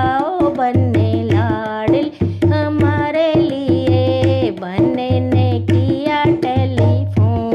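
A banna geet wedding folk song: a voice singing a melody with bending, wavering pitch over a steady hand-drum beat with sharp strokes.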